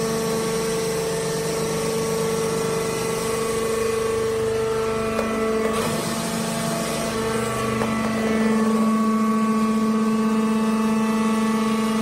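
Hydraulic wood-chip bagging baler running: a steady motor-and-pump hum at one fixed pitch, with a few light knocks as the bag is filled and a slight rise in level about two-thirds of the way through.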